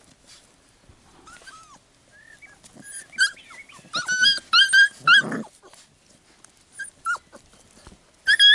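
Labrador retriever puppies yapping at each other while play-fighting: short, high-pitched yaps in quick runs from about three seconds in, a few more around seven seconds and another run near the end.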